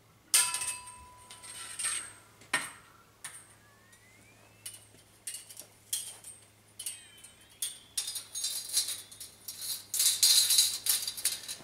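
A long 1-inch steel bandsaw blade being flexed and coiled by hand. A sharp clank about half a second in is followed by a clear ringing tone lasting over a second. Further clanks and scraping, sliding tones follow, then a dense metallic jangle near the end as the coils are folded together.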